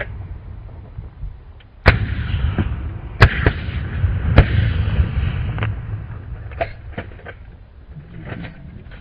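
Three shotgun shots about a second apart over a steady low rumble, with a few fainter clicks and pops later on.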